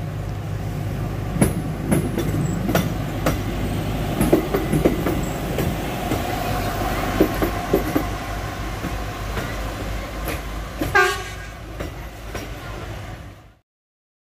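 Plasser & Theurer EM 120 track recording car passing on the rails: a steady low rumble with sharp clicks of its wheels over the rail joints. About eleven seconds in there is a brief, louder high-pitched sound. The sound cuts off suddenly near the end.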